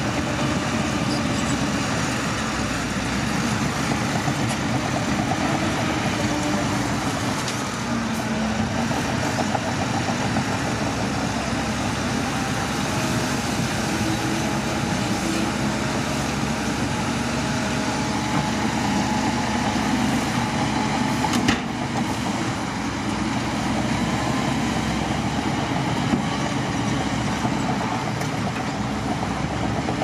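Heavy diesel dump truck engines running steadily as the trucks raise their tipper beds and unload soil, with a sharp knock about two-thirds of the way through.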